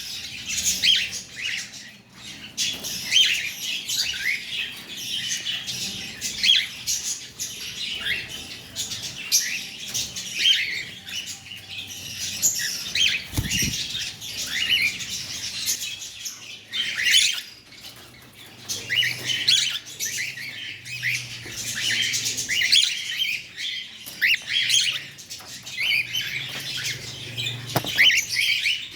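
Cockatiels chirping and squawking almost without pause, many short calls overlapping. There is a brief low bump about halfway through.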